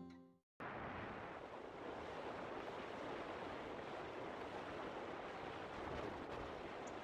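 Steady rush of wind and sea as a tanker runs through open water, its hull pushing up white water, with wind buffeting the microphone.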